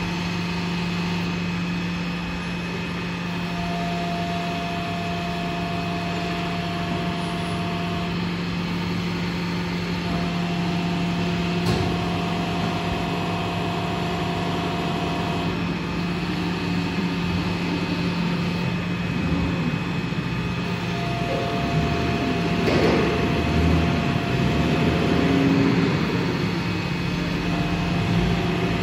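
200-ton four-column hydraulic press running: a steady low hum from its pump unit, with a higher whine that comes and goes several times as the press works. There is a sharp click about 12 seconds in and another about 23 seconds in.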